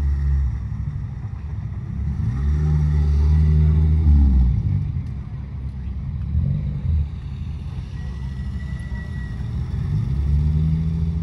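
Car engines revving as cars pull away one after another. The loudest rev rises in pitch from about two seconds in and cuts off at about four and a half seconds, a short rev follows around six and a half seconds, and another rev comes near the end.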